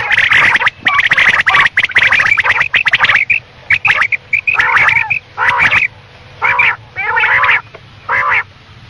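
Quail calling: a fast, stuttering run of notes for about three seconds, then short calls repeated about once a second.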